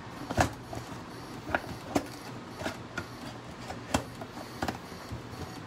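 An emptied cardboard trading-card box being handled by gloved hands, giving a few scattered light knocks and taps of cardboard, about six in all.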